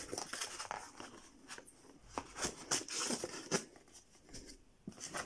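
Cardboard boxes scraping, rubbing and knocking against each other as smaller boxes are drawn out of a cardboard shipping box: an irregular run of short scrapes and taps.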